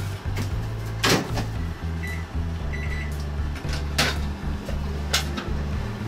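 Microwave oven door shut with a clunk about a second in, then two short keypad beeps as it is started to heat pork. Later, a couple of sharp plastic knocks.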